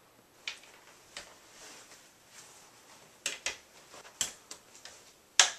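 Snap fasteners on a glider rocker's fabric armrest covers clicking shut as they are pressed onto the chair: about eight sharp, separate clicks spread over several seconds, the loudest near the end.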